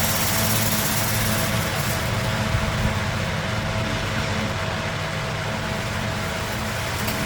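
Steady mechanical hum: a constant low drone with a faint higher tone over an even rushing noise, unchanging throughout.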